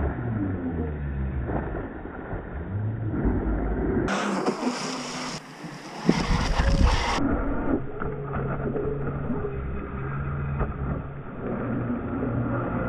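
A radio-controlled jet boat running fast on open water, its motor and jet drive whining with a pitch that rises and falls as it speeds and turns, with the hiss of water spray.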